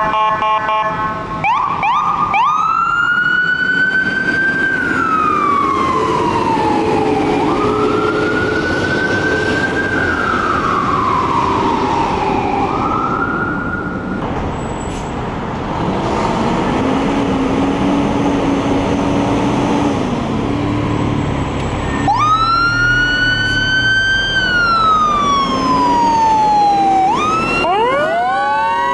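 An emergency vehicle's siren wailing, each cycle rising quickly and falling slowly, several times over. A short steady horn blast opens the sound, and the siren switches to a fast sweeping yelp near the end.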